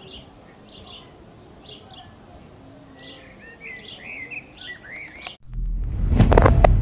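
Small birds chirping repeatedly over a faint steady hiss. About five seconds in the sound cuts off and a loud, deep rumbling sound effect with a few sharp hits begins, the start of an outro sting.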